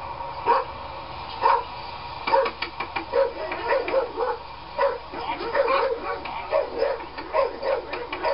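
Dog barking in short, repeated barks. There are two single barks at first, then from about two seconds in they come in a fast, steady run.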